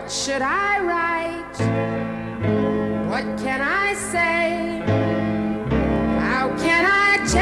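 Pop music: a melody sliding up into held notes over a steady backing.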